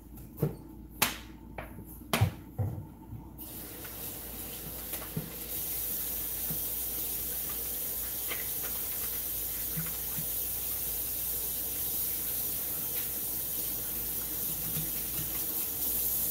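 A few light knocks, then a kitchen faucet running steadily into the sink from about three seconds in.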